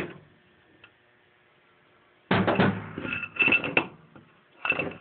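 Metal fork parts clattering and clinking with a ringing tone as the damper rod is worked out of a Kawasaki KZ900 fork tube. It is nearly silent at first, then the clatter starts about two seconds in and comes in two quick clusters.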